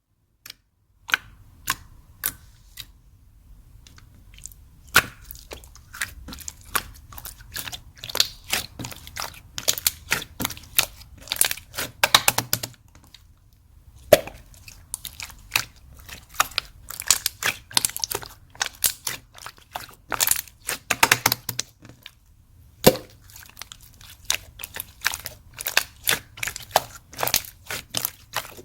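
Slime being squeezed and worked by hand, giving a run of sharp clicking and popping sounds that come in busy clusters with short pauses between them.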